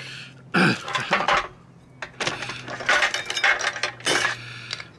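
Thin sheet-metal parts of a mini barbecue clinking and rattling against each other as they are lifted out of their box and handled, in several irregular clatters.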